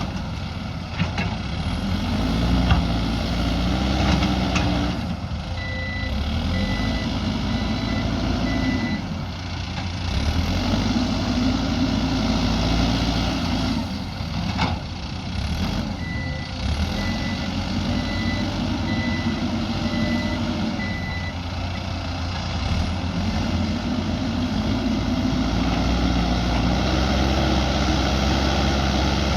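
Mahindra backhoe loader's diesel engine running under load, swelling and easing every few seconds as it works the dirt, with a few sharp knocks. Its reversing alarm beeps in two spells, about a fifth of the way in and again just past the middle.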